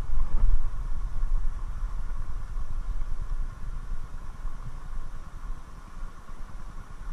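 Flowing river water with an uneven low rumble on the microphone, loudest in the first second or so and easing off after.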